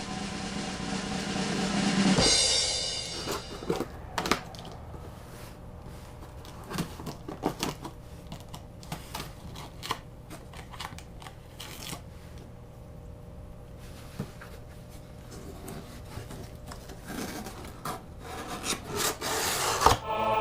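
A package being opened by hand: scattered rustling, scraping and clicking of packaging, with a louder burst of tearing or rustling near the end. A short stretch of music rises over the first two seconds.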